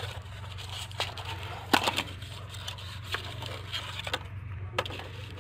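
Small cardboard parts box being handled and opened by hand: its flaps crackle and scrape in a run of irregular clicks, the sharpest about 1.7 and 2 seconds in. A steady low hum runs underneath.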